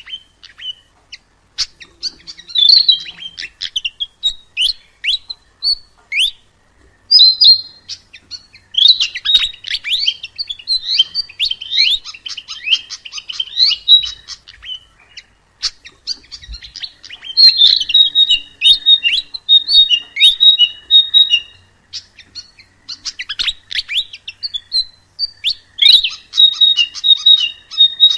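Sikatan emas, a Ficedula flycatcher, singing a fast, varied song of high chirps and trills in bursts of a few seconds with short pauses between them; some phrases repeat one high note many times in quick succession.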